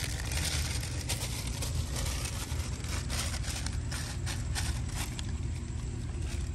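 A small plastic bag of pickle crinkles in short, scattered crackles as it is squeezed out by hand, over a steady low rumble.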